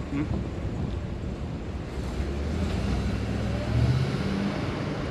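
A car driving past on the street: a low engine and tyre rumble that builds to its loudest about four seconds in, then eases off, over steady street noise.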